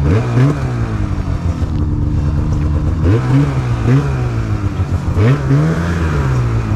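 Polaris mountain snowmobile's two-stroke engine idling, revved in several short throttle blips that rise and fall back, used to set the track into a side hill.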